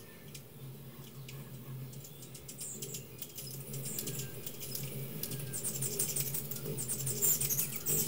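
Hummingbirds at feeders making quick high chips and squeaky twittering, growing louder and busier in the second half, over a steady low hum.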